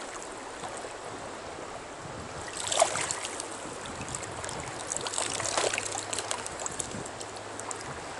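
Stream water running steadily, with a few short sharp noises over it, the loudest about three seconds in.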